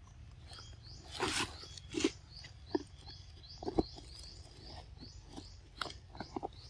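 A pig-tailed macaque eating a chunk of soft, ripe orange fruit: irregular short bites and mouth smacks, the loudest two about one and two seconds in. A faint run of short, rising high chirps repeats steadily behind it.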